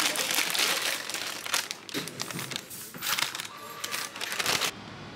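Irregular bursts of crinkling and rustling, stopping abruptly near the end.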